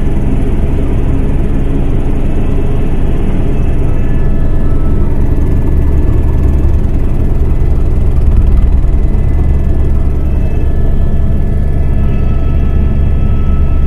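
Helicopter in flight: the steady drone of rotor and turbine, heard from aboard, with a faint high whine that holds one pitch.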